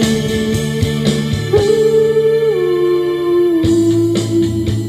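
A man singing a song into a microphone over guitar accompaniment, holding one long note that slides up about a second and a half in and steps down again about halfway through.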